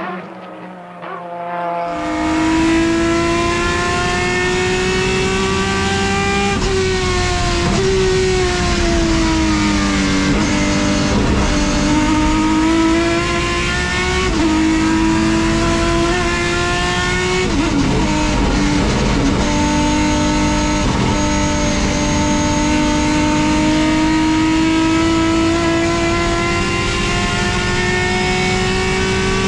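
Race car engine running at high revs, its pitch sagging and climbing slowly with throttle and gear changes. About two seconds in, a quieter engine note cuts abruptly to it.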